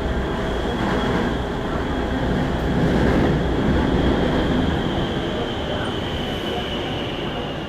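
Daegu Metro Line 1 subway train heard from inside the carriage while running between stations: a steady rumble of wheels on track with a thin high whine held above it. The rumble swells a little midway and then eases slightly.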